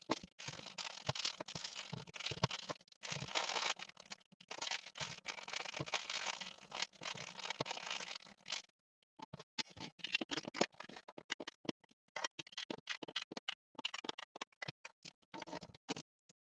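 Costume-jewelry rings being handled: continuous scratching and rustling for about the first eight seconds, then a run of small clicks and taps.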